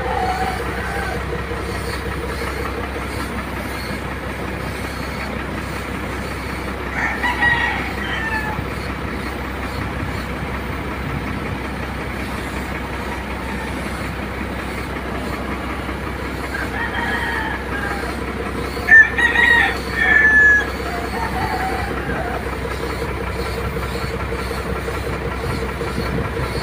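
A steady machine drone with a low hum from the spray-painting rig, the air-fed paint spray gun and its air supply. Over it a rooster crows, once about a quarter of the way in and again, louder, about three quarters in.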